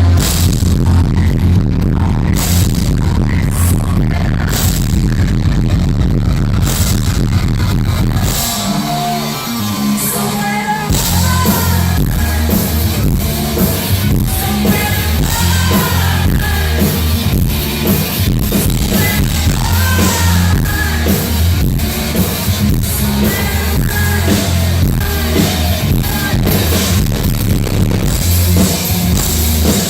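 Loud live electronic dance music with sung vocals, recorded with poor sound quality. A heavy pulsing bass beat drops out about eight seconds in for a short breakdown, then comes back under the singing.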